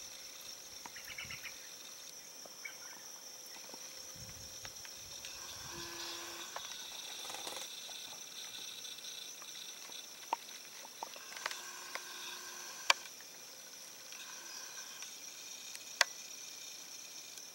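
A steady, high-pitched chorus of evening insects, several layers of buzzing trills at once. A few sharp clicks stand out about ten, thirteen and sixteen seconds in.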